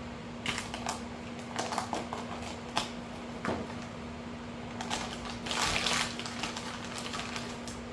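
A roll of refill filament being unpacked by hand: plastic packaging crinkling and rustling, with scattered clicks and taps. The crinkling is thickest about six seconds in.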